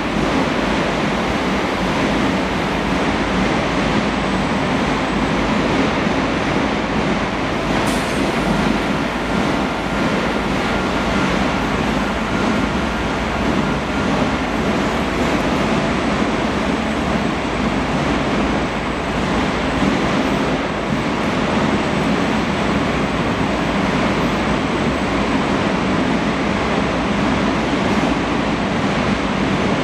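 Automated precast-concrete handling and stacking machinery running, a steady loud mechanical rumble, with one sharp click about eight seconds in.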